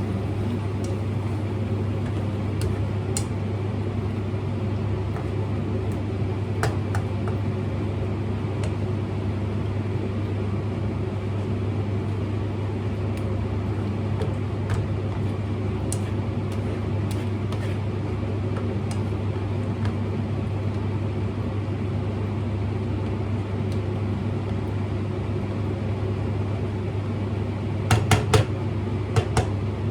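Steady electric hum of a running kitchen appliance motor. A few faint ticks are scattered through it, and a short run of sharp clicks and clinks comes near the end.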